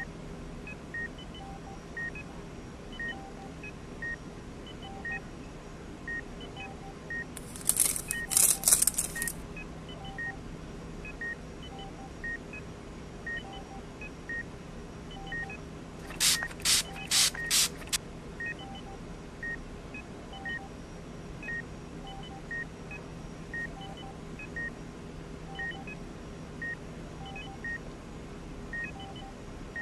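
Electronic heart-rate-monitor beep repeating about once a second over a low steady hum. Twice, about eight and seventeen seconds in, a loud burst of noise cuts in; the second burst comes as about five quick pulses.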